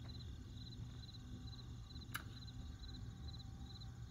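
Cricket chirping steadily, about two short trilled chirps a second, over a low steady hum, with a single sharp click about two seconds in.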